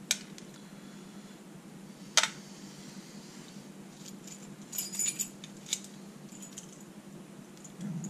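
Small metal lock parts and tools being handled and set down: a sharp click just after the start, another about two seconds in, then a cluster of light metallic clinks around five seconds in.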